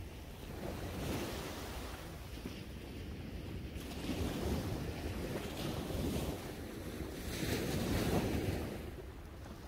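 Small waves breaking and washing up on a sandy shore, the surf swelling and fading about three times, with wind rumbling on the microphone.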